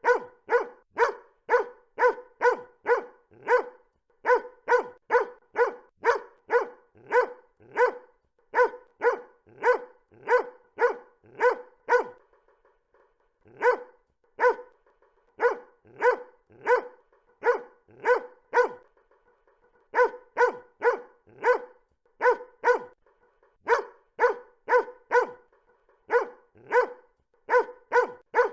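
A dog barking repeatedly, about two barks a second, in long runs broken by a couple of short pauses.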